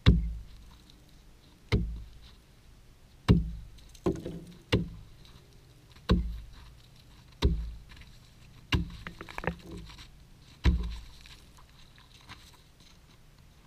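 Axe chopping through pond ice: about nine heavy strikes a second or two apart, each a sharp crack with a deep thud. The blows go around a ring cut in the ice to break the hole through as water starts to seep up.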